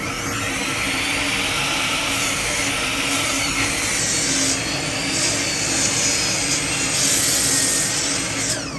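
Sliding compound miter saw running and cutting down through a thick wooden slab: dense blade-in-wood noise over a steady motor hum, cutting off abruptly near the end.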